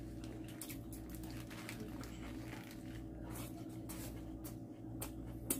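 A man chewing a bite of shrimp burger, faint wet mouth sounds with scattered soft clicks, over a steady low hum.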